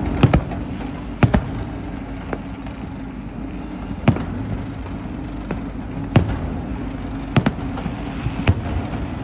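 Fireworks going off: about ten sharp bangs at irregular intervals, some in quick pairs, over a steady low hum.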